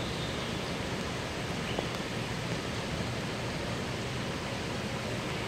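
Steady rushing of running water, an even hiss with no distinct splashes or changes.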